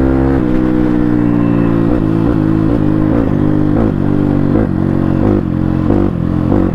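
CX300C motorcycle running with both dB killers removed from the exhaust, giving a loud, raw exhaust note. The engine note drops about half a second in, then wavers in uneven pulses about three times a second.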